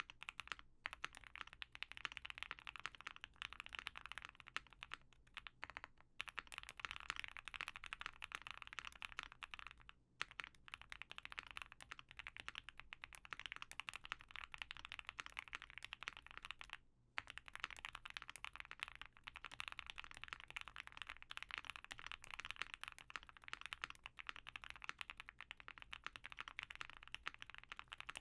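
Continuous typing on an OwLab Mr. Suit custom mechanical keyboard with lubed Banana Split linear switches on a POM plate and GMK keycaps: a dense run of key strokes, with brief pauses about ten and seventeen seconds in.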